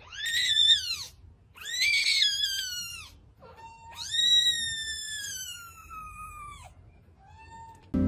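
Kitten mewing loudly: three high, drawn-out cries, the third the longest and falling in pitch, then a faint short mew near the end.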